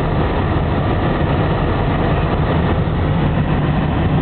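Steady low rumble of a car's engine and tyres heard from inside the moving car's cabin.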